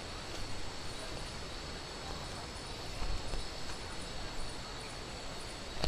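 Steady rushing of a waterfall, with a continuous high-pitched insect drone and small repeated chirps over it.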